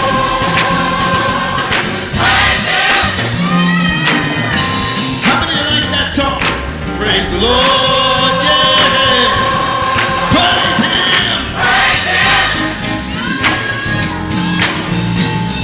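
Gospel choir singing with band accompaniment, holding long notes over drum strokes.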